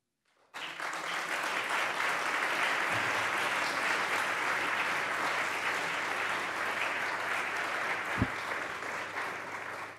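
Audience applauding, starting about half a second in, holding steady and dying away near the end. A single sharp low thump sounds about eight seconds in.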